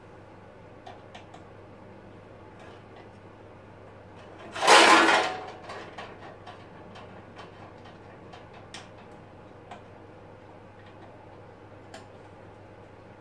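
Light clicks and taps of hands working the lower blade-guide bearings under a Lumberjack BS254 band saw's table. About a third of the way in there is one much louder noisy scrape or clatter lasting about a second.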